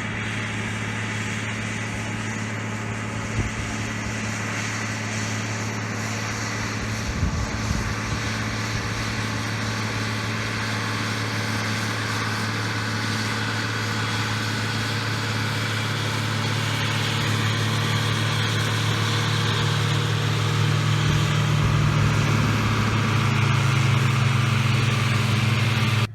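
John Deere 4055 tractor's six-cylinder diesel engine running steadily while pulling a 567 round baler through the hay, getting louder in the second half. There are a couple of brief knocks in the first few seconds.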